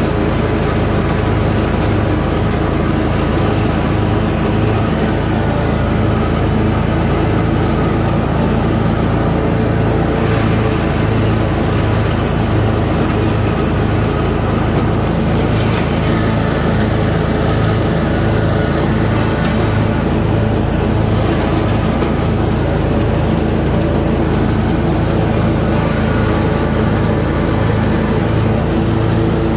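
Troy-Bilt Mustang RZT 60-inch zero-turn riding mower running steadily with its blades engaged while driving and cutting tall grass. The engine makes a loud, even drone with a slight regular pulse.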